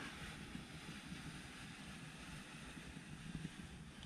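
Faint steady background hiss and low rumble, with no distinct events.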